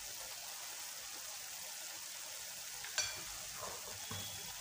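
Beetroot mixture in ghee and water simmering in a non-stick pan, a steady faint sizzling hiss as the water comes up to the boil. About three seconds in, a utensil strikes the pan once with a short ring, followed by soft stirring scrapes.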